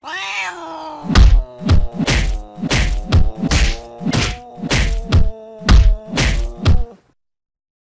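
Rapid run of loud punch-style whacks, about three a second, standing in for a cat's paw swats at a dog's face, over a steady droning tone. It all cuts off suddenly about seven seconds in.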